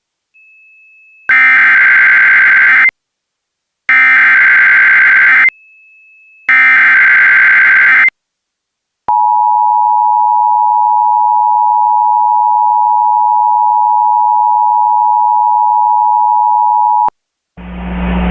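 Emergency Alert System alert: three identical bursts of screeching digital SAME header data, then the EAS two-tone attention signal (853 and 960 Hz together) held steady for about eight seconds and cut off sharply.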